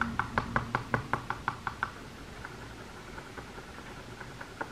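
Quick, even tapping and clicking of a mixing tool against a small dish while eyebrow tint cream is stirred into its developer, about five taps a second. After about two seconds the taps become fainter and sparser. The cream is mixing poorly and is lumpy.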